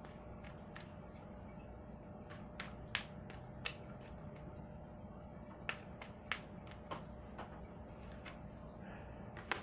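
Tarot cards shuffled by hand: irregular, scattered sharp clicks and snaps of the cards, the sharpest near the end.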